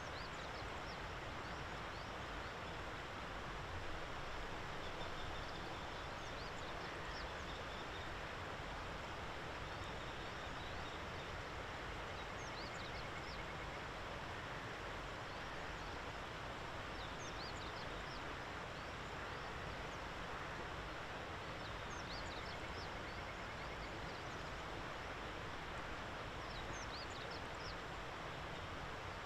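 Common kestrel calling in short, rapid series of thin, high notes every few seconds, over steady outdoor background noise.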